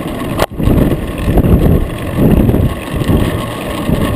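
Wind buffeting the microphone of a bicycle-mounted camera while riding, with uneven low gusty rumbling. The sound cuts out briefly about half a second in, then resumes.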